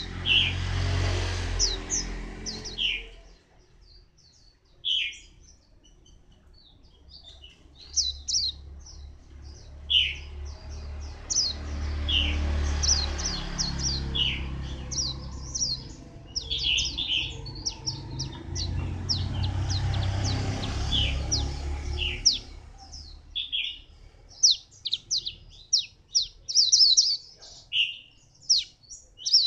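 Caged white-eye singing: a run of short, high chirps and twitters, coming thickest near the end. A low rumble rises and fades in the background twice.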